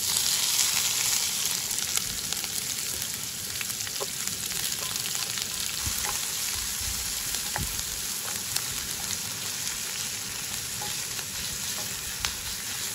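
Chopped onions hitting hot oil and cumin in a pan: a loud sizzle that starts suddenly and settles into steady frying, with scattered clicks of a spoon stirring. This is the first stage of frying the onion base for a fish curry.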